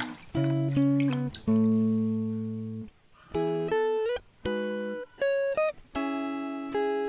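Background music: a guitar playing a run of picked chords and single notes, each fading after it is struck, a few sliding up in pitch.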